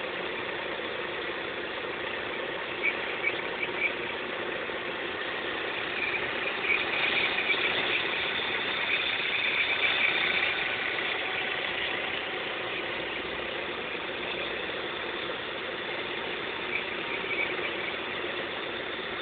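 Opel Vectra B's X20XEV 2.0-litre 16-valve four-cylinder engine running steadily, with an unexplained high-pitched squeal that comes and goes in short chirps, strongest around the middle and briefly again near the end.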